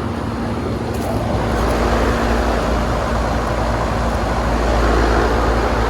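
Outdoor unit of a 2006 five-ton heat pump running: a steady condenser fan airflow with a steady compressor hum, and a low rumble that swells about a second and a half in.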